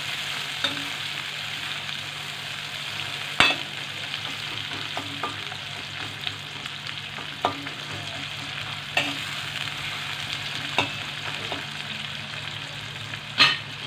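Sliced onions sizzling in hot oil in a metal kadai, with a steady hiss. A metal spatula stirs them, clicking and scraping against the pan every second or two, loudest about three seconds in.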